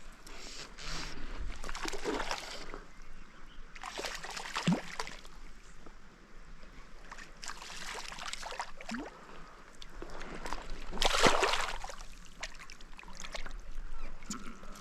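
Water splashing and sloshing in irregular bursts as a small hooked fish, about 10 to 11 inches, thrashes at the surface while it is brought in and landed.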